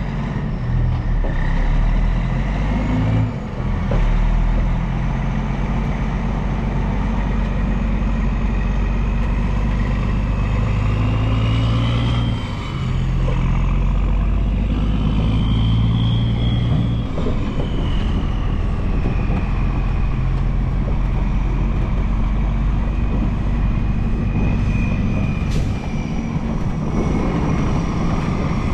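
Semi-truck's diesel engine running under way with road noise, heard from a camera mounted on the back of the rig. The sound dips briefly twice, about 3 and 12 seconds in, and a faint whine rises and falls above the engine.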